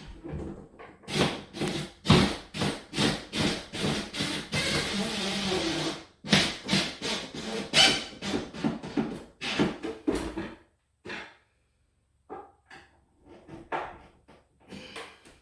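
Small screws being driven in while fitting a wood closet organizer: a rapid run of knocks and scraping, with a short continuous rattle about four seconds in, then sparser, fainter clicks after about ten seconds.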